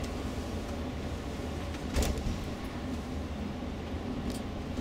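Steady engine and road rumble heard from inside a moving tour coach, with a short rattle or knock about two seconds in and a fainter one near the end.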